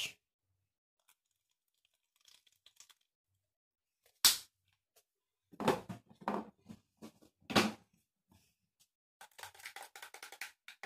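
Handling noises: a single sharp knock about four seconds in, then three rough rustling scrapes, and a quick run of light clicks near the end.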